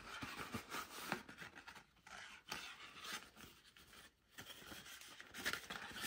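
Paper rustling and scraping as a folded card packet is opened and coiled shoelaces are slid out of it, uneven and faint, with a short lull about four seconds in and louder handling near the end.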